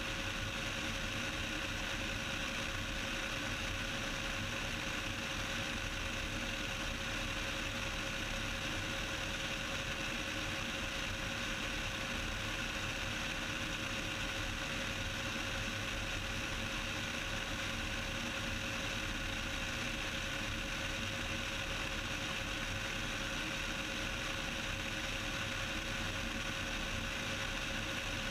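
Steady drone of a Cessna 172's engine and propeller in flight, heard from inside the cockpit, with a faint steady tone running through it.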